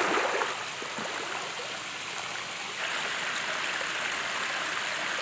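Steady rush of running water, with a splash at the start as a swimmer ducks under the surface of the pond; the rushing grows a little louder about three seconds in.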